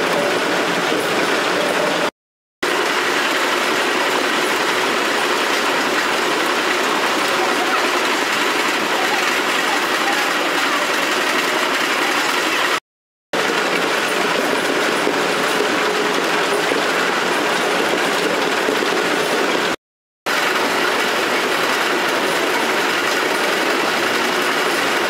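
Steady mechanical running noise from machinery, dropping out abruptly for about half a second three times, about two, thirteen and twenty seconds in.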